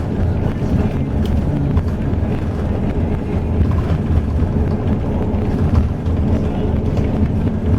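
Intercity highway bus under way, heard from inside the passenger cabin: a steady low engine and road rumble.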